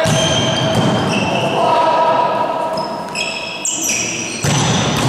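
Volleyball rally in an echoing sports hall: the ball is struck hard once at the start and again about four and a half seconds in, with sneakers squeaking on the wooden court and players shouting in between.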